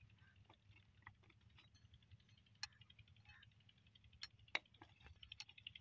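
Faint, scattered clicks and taps of hands and a metal spanner handling a rusty pipe flange joint, with the sharpest click about four and a half seconds in and a quick run of small taps near the end.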